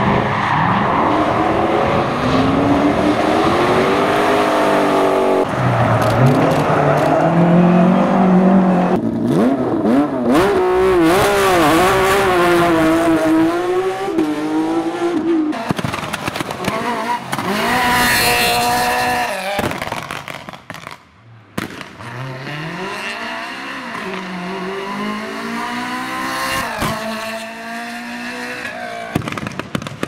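Citroën Saxo rally car's engine revved hard and let off again and again as it is thrown around a tight course, the pitch climbing and falling with each burst of throttle. About two-thirds of the way through the sound drops away briefly, then the engine picks up again.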